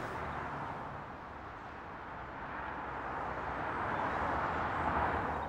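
A steady rushing noise that slowly swells, loudest about four to five seconds in, then drops away near the end.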